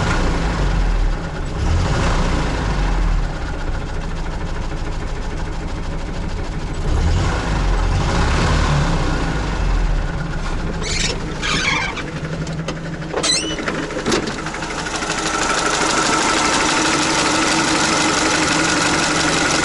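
UAZ-469's four-cylinder petrol engine running with a knock while it has zero oil pressure, the revs rising and falling, then holding steadier from about fifteen seconds in. The owner suspects a spun crankshaft bearing shell.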